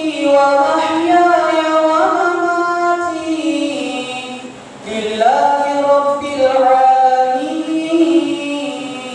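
A man's voice chanting in a slow, melodic recitation style, holding long notes that glide between pitches. Two long phrases, with a short breath about halfway through.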